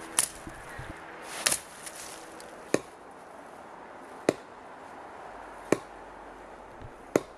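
Axe chopping into small trees: six sharp blows, evenly spaced about a second and a half apart.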